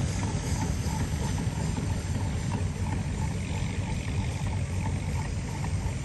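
Fowler steam ploughing engine working, a steady low running sound with a light regular tick about three times a second.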